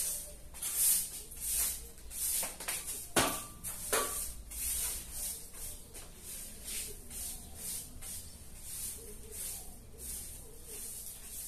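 Broom with plastic bristles sweeping a concrete floor in regular strokes, about one and a half a second, with two sharp knocks a few seconds in.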